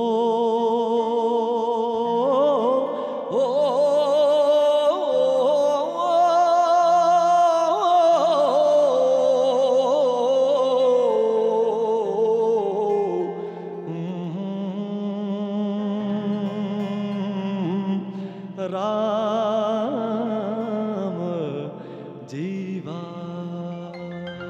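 Male voice singing a Punjabi Sufi song without words, in long, wavering, ornamented notes that slowly drift downward, over a steady sustained instrumental drone. The singing gets softer about halfway through.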